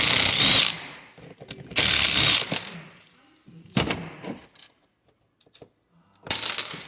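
Small power screwdriver running in three short bursts, about a second each, while the end cover of an automotive coolant flow control valve is unfastened, followed by a few light clicks of plastic parts.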